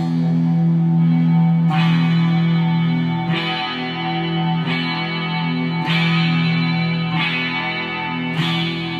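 Custom KH-1 electric guitar played through an amplifier on its front pickup with the tone rolled all the way back: a low note rings under a phrase that is picked again about every second and a half.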